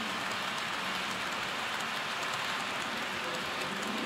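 Model railway train rolling past on the layout's track: a steady rattle of small metal wheels on the rails, with faint rapid ticks.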